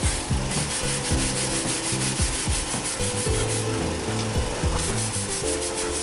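Hand scrubbing of a rusty bicycle part with an abrasive: rapid, even back-and-forth rasping strokes, cutting off suddenly at the end. Background music plays underneath.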